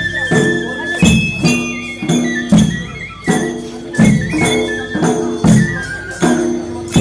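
Traditional folk dance music: a steady, heavy drum beat with a stroke about every three-quarters of a second, percussion, and a high melody line over steady lower held notes.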